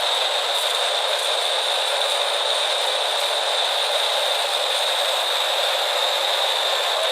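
Wood-processing machinery running steadily: a continuous rushing noise with a strong, steady high whine over it.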